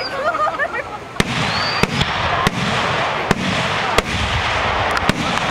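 Aerial firework shells bursting overhead: a series of sharp bangs, about one every half-second to second, with two close together near the end, over a steady crackling hiss.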